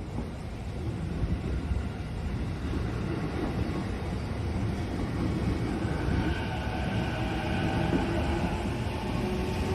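Nambu Line electric commuter train at a level crossing: a low rumble that slowly grows louder as the train draws near, with steady tones joining about halfway through.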